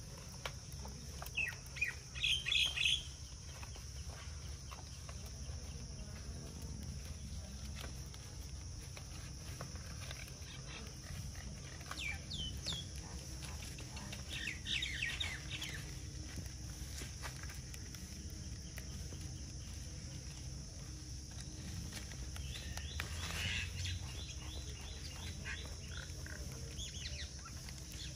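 Small birds chirping in scattered bursts of quick, falling notes every few seconds, the loudest about two to three seconds in, over a steady high hiss.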